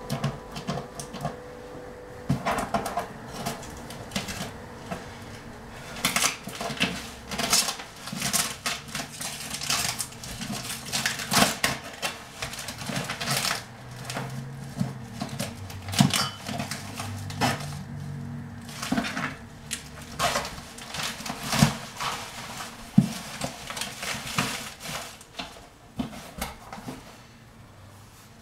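Tape being peeled and ripped off a cardboard box, a long run of irregular crackling tears with the rustle and flex of the cardboard, ending as the box flaps are pulled open.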